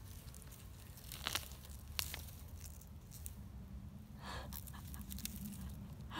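A carrot being pulled by hand out of garden soil: its roots tear loose with two sharp snaps and the soil crunches, then the leafy tops rustle. A low steady rumble runs underneath.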